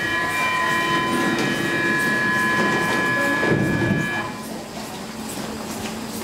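Stockholm C20 metro train's door-closing warning, a steady tone of several high notes held for about four seconds. It ends as the doors shut with a dull thud, leaving the train's steady low hum.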